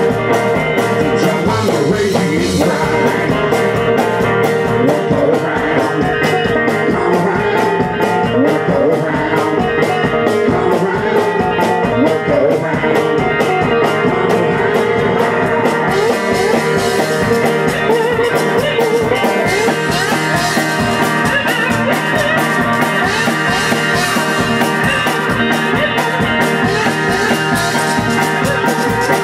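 Live country-blues band playing a driving, steady tune: guitar over a regular kick-drum beat, with sleigh bells shaken along in quick even strokes.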